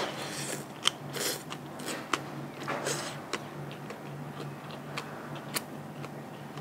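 Close-up eating sounds: crunchy chewing and biting with irregular sharp clicks and short crackles, typical of chewing crisp raw vegetables. A faint steady low hum runs underneath.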